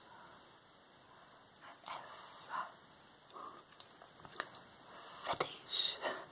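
Close-miked whispering, breathy and unvoiced, in short phrases, with a few sharp clicks in the second half.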